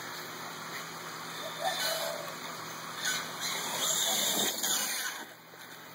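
Radio-controlled monster truck driving across a grass lawn in bursts, its motor whirring over a steady hiss. There is a short burst about two seconds in and a longer one from about three seconds until just before the end.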